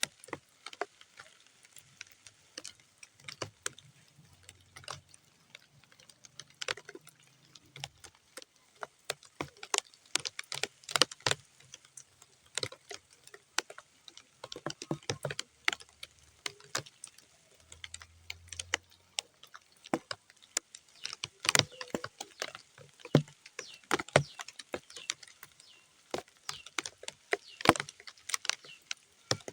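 Raindrops hitting wet, muddy ground as separate, irregular taps and splats, several a second, some much sharper than others, over a faint hiss of rain.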